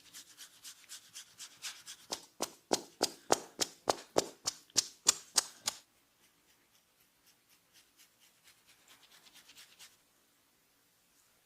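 Barber's head massage: quick, rhythmic strokes of hands on the scalp and hair, about three a second. They grow louder and sharper, then drop to faint strokes that stop shortly before the end.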